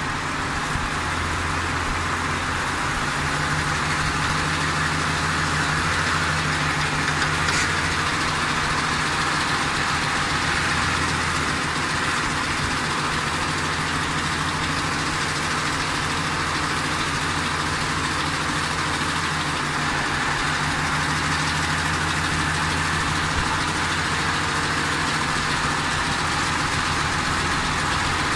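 Ford 5.4-litre three-valve V8 running at a lightly raised idle in drive, held on the brake, with both VCT solenoids connected. The engine note firms up about a second in, with a slight ticking clatter that the owner blames on the cam phasers, and one brief sharp click partway through.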